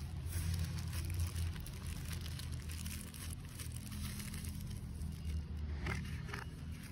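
Thin paper wrapping crinkling and rustling as hands handle a magnetic wireless charger in it, over a low steady hum. A short rising squeak comes near the end.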